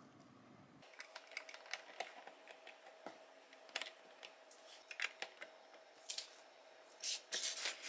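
Plastic LEGO bricks and minifigures clicking and rattling as they are handled and fitted onto a model, in scattered soft clicks with a quicker run of them near the end.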